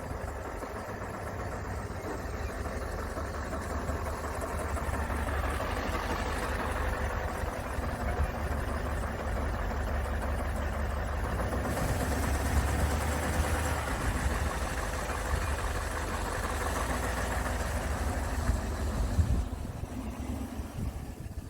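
Range Rover 4.4 TDV8 diesel V8 running with a bad knocking sound, which the owner fears means the engine can't be saved. The engine note grows louder, with one sharp thump near the end.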